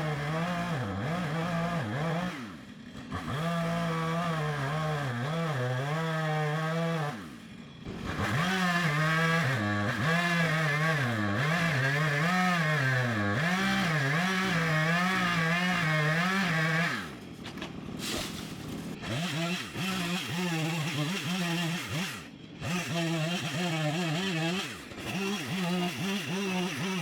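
Small two-stroke chainsaw running at high revs, its pitch wavering up and down, with brief dips about 3, 8, 17 and 22 seconds in.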